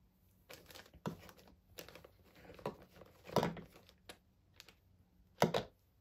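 Hands rummaging through a box of skincare jars and packets: a run of rustles, clicks and knocks, with two louder knocks, one in the middle and one near the end.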